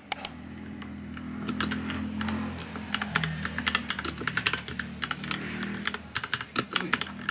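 Typing on a computer keyboard: an uneven, fast run of key clicks that thickens after the first second or so, over a low steady hum.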